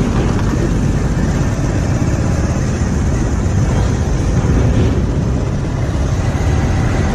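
Steady wind rush on a rider's camera microphone while riding a Bajaj Pulsar 180 motorcycle, with the bike's single-cylinder engine and tyre noise running under it.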